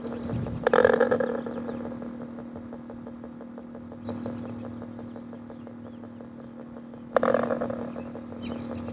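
P-SB7 spirit box sweeping radio stations: a steady hum with rapid faint clicking, broken by loud bursts of static about a second in and again about seven seconds in, with a weaker one about four seconds in.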